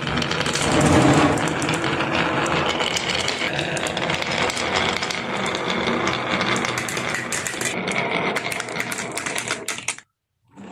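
Many marbles rolling and clattering down a wooden marble run, a dense, continuous rattle of rapid clicks that cuts off abruptly about ten seconds in.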